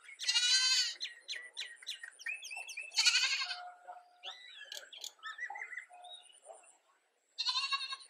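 Domestic turkeys calling: three loud, quavering gobbles, near the start, about three seconds in and near the end, with shorter, softer clucks and yelps between them.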